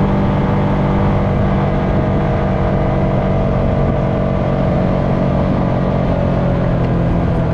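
Honda FourTrax Foreman ATV engine running steadily under way at riding speed, its pitch easing down a little in the second half as the throttle comes off.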